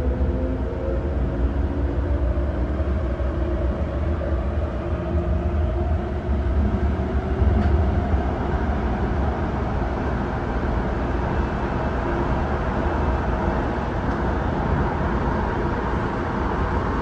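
Hong Kong MTR train running: a steady low rumble with rolling rail noise. Faint whining tones glide in pitch during the first few seconds.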